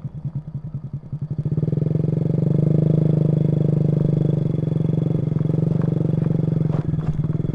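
Automatic scooter engine pulling under throttle on a rough dirt track: the engine note picks up about a second and a half in, holds steady, then eases off near the end.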